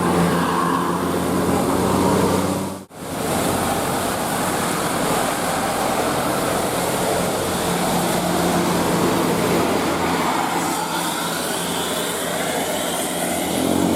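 Bus engine running with road traffic noise. It cuts out for a moment about three seconds in. Near the end a multi-tone telolet horn starts to sound with rising notes.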